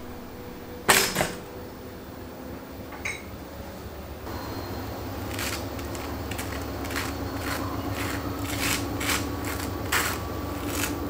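A pop-up toaster's lever clicks sharply about a second in. From about four seconds, a table knife scrapes spread across a slice of toast in repeated short strokes, over a low steady hum.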